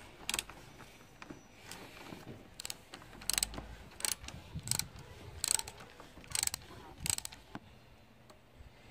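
Socket ratchet wrench clicking in short runs on each back-stroke as a fastener is turned, about one run of clicks every second, stopping near the end.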